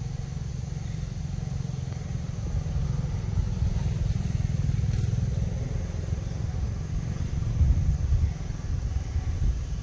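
A steady low rumble, swelling slightly near the end.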